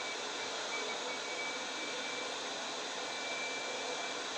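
Steady, even hiss of background noise with a faint thin whistle in it, unchanging throughout and with no other sound standing out.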